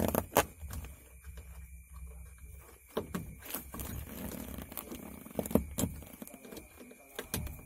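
Hard plastic clicks, knocks and scrapes as fingers push and work a round blank plug out of a plastic dashboard panel, opening the hole for a cigarette-lighter socket. A few sharp clicks stand out, spaced irregularly.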